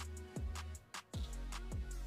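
Background music with a steady beat: deep bass-drum hits that drop in pitch, long low bass notes and ticking hi-hats.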